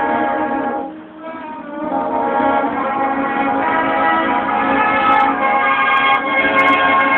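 Marching band playing sustained, held chords. The sound drops away briefly about a second in, then swells back into full held chords.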